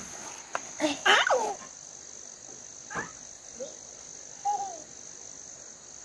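Steady, high-pitched chirring of insects in the background, with a brief voice about a second in and a short call just past the middle.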